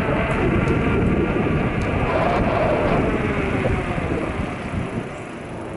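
Steady rush of wind and road noise from riding a bicycle, picked up by a compact camera's microphone covered with small furry wind muffs. It eases off near the end.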